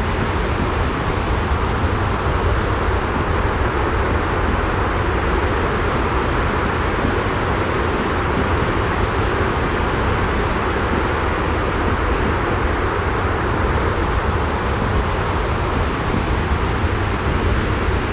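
Steady, unchanging rushing white-noise track for sleep, heavy in the low end, with no separate events.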